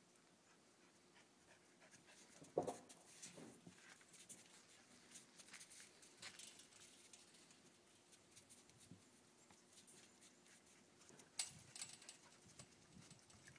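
English setter climbing a chain-link fence: faint scattered clinks and rattles of the wire, with one short whine about two and a half seconds in and a sharp click near the end.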